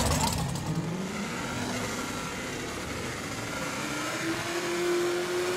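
Drag racing car engines revving at the starting line, the pitch climbing in the first second and again from about four seconds in, then held high.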